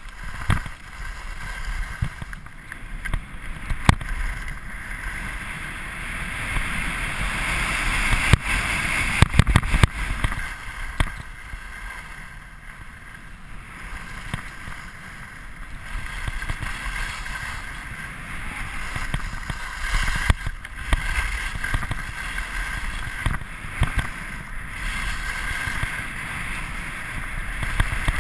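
Skis hissing and scraping over packed snow on a downhill run, mixed with wind rushing over the microphone. The hiss swells and eases with the turns, and scattered sharp knocks come through.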